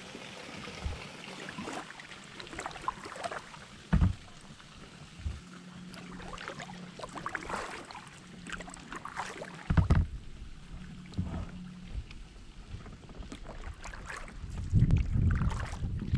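Kayak paddling: the paddle blades dip and splash in the water at an uneven rhythm. A few louder low thumps, about 4 and 10 seconds in and again near the end, are the loudest sounds.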